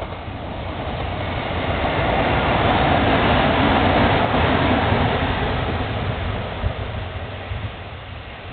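Kintetsu 6200 series three-car electric train passing at speed, its steady rumble and rail noise swelling to a peak about halfway through, then fading as it draws away.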